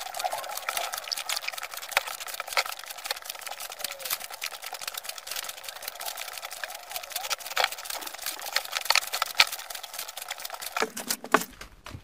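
Foil potato-chip bags crinkling and rustling as they are handled and piled on a table: a run of irregular sharp crackles. The sound is thin, with no low end, until shortly before the end.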